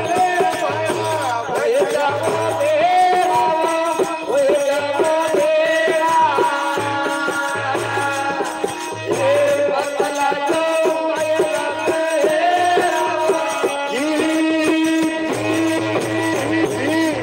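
Amplified devotional bhajan singing into a microphone, with melodic accompaniment and a steady rattling hand-percussion beat.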